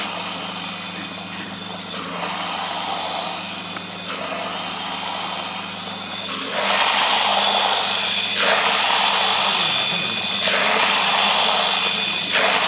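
Stainless-steel colloid mill running with a steady motor hum while grain is fed into its hopper. From about six and a half seconds in, a much louder rushing hiss of water from a hose pouring into the steel hopper joins it.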